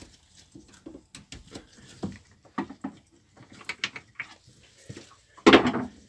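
Screwdriver and gloved hands working the screws at the base of a Jabsco manual marine toilet pump: irregular small clicks, taps and scrapes as the screws holding the pump down are loosened to change its base gasket, with a louder clatter about five and a half seconds in.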